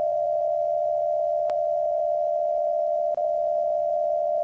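Emergency alert attention signal: one steady, unbroken mid-pitched tone held for several seconds, with a brief dropout about three seconds in.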